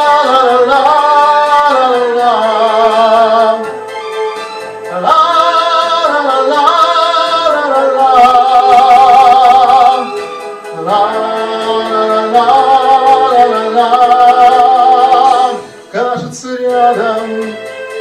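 A man singing a wordless melody into a microphone over a karaoke backing track: three long phrases of held notes with vibrato, with short breaks about four and ten seconds in.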